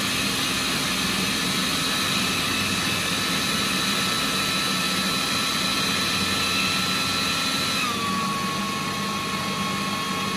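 Kenwood food processor motor running steadily while chopping lemongrass, with a steady whine that steps down a little in pitch about eight seconds in.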